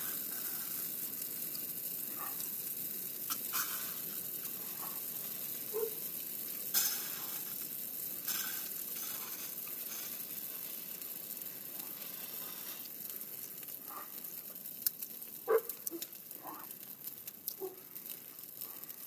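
Dry evergreen Christmas greenery burning in an open bonfire: a steady hiss and crackle with scattered sharp pops, growing slowly quieter as the blaze dies down.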